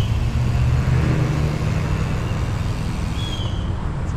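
Steady low rumble and hum of a motor vehicle running, easing a little after about two seconds, with a short high chirp about three seconds in.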